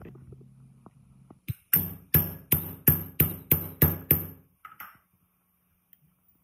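About nine sharp metallic knocks with a ringing edge, roughly three a second, as a steel tube is driven down over an electric water pump motor's rotor shaft to seat a ball bearing on it; two light taps follow.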